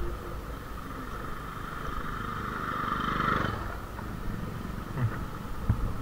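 A motorcycle engine swells as an oncoming bike approaches and passes, peaking and dropping away about three and a half seconds in, over steady wind and road noise from a motorcycle riding downhill. A few faint knocks follow near the end.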